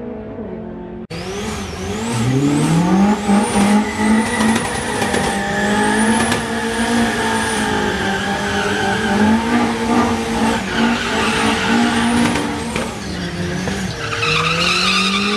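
Starting about a second in, a Toyota Beams-engined Corolla doing a burnout: the engine revs up and down and is held high while the spinning rear tyres squeal.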